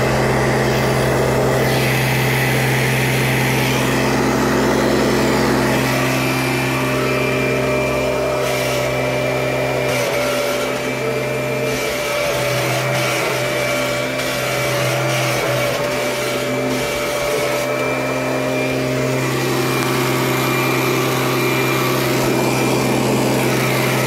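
A 1994 Kirby G4 upright vacuum cleaner running steadily, its motor giving a constant whine over a low hum. The low end drops off a little about ten seconds in. There is a little clanking, and the owner thinks the motor might need a new carbon brush.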